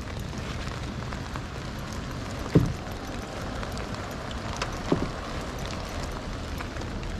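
Steady rain falling on the lake, with fine scattered drop ticks. Two dull knocks cut through it, a louder one about two and a half seconds in and a softer one about five seconds in.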